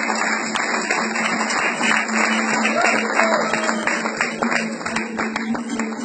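Kazakh dombra strummed with fast, continuous strokes in an instrumental interlude between improvised verses.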